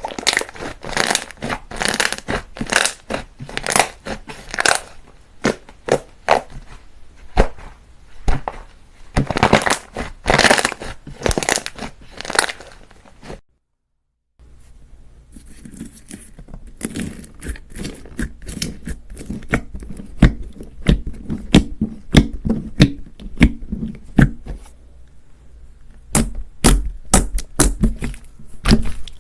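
Hands squishing, pressing and stretching slime, with rapid crackling and popping of trapped air. The sound cuts out for about a second near the middle, then goes on softer, with deeper squelches near the end.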